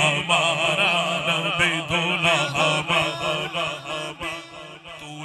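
A naat being chanted: a wavering, ornamented melismatic vocal line over a steady low hum, growing quieter over the last second or two.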